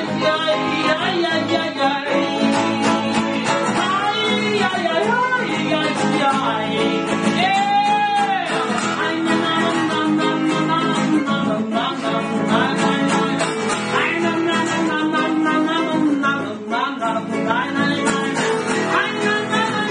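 Live song performance: guitar accompaniment with a voice singing a melody over it.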